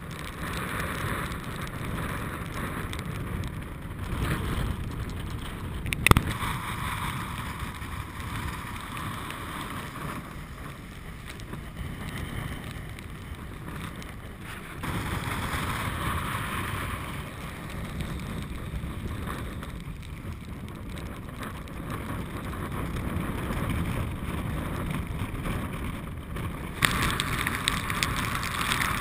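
Wind rushing over the microphone and choppy water splashing close by, a steady noisy rumble. A single sharp knock comes about six seconds in, and the sound changes abruptly about 15 and 27 seconds in.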